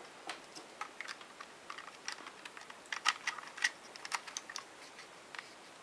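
Light, irregular plastic clicks and taps from a camcorder being handled: its memory-card slot cover being opened and a memory card pushed in.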